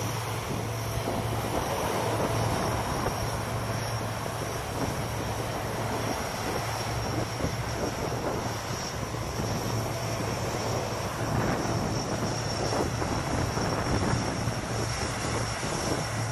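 C-130 Hercules turboprop engines running while the aircraft taxi: a steady drone with a high turbine whine over a low propeller hum.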